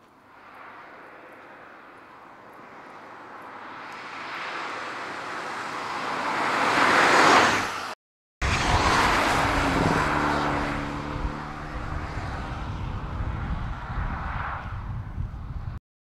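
A 2014 MINI Hatch driving past, its engine and tyre noise building steadily to a loud peak and then cut off. After a brief gap the car is heard again: a steady engine note over a heavy low rumble, fading slowly until it stops abruptly near the end.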